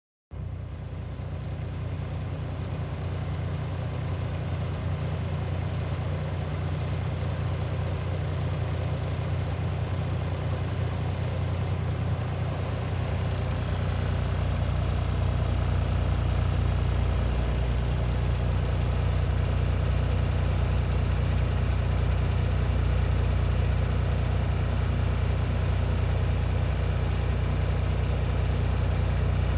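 Heavy diesel engine running steadily, heard from inside a vehicle cab. It grows louder, with more low rumble, about halfway through.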